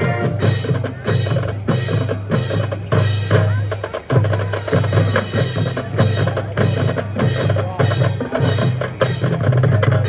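Marching band percussion section playing a loud, drum-heavy passage: rapid, repeated drum strikes over a low sustained bass, with the winds mostly dropped out.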